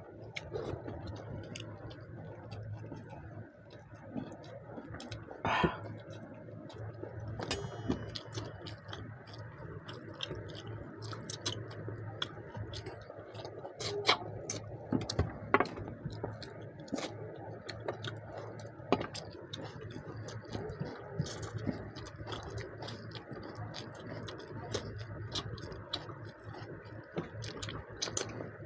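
Eating sounds from chicken curry and rice eaten by hand: chewing with many small wet mouth clicks and smacks, over a steady low hum.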